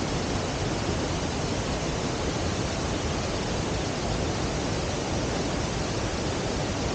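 Waterfall in spate: a heavy, swollen flow of water crashing down in a steady, unbroken roar.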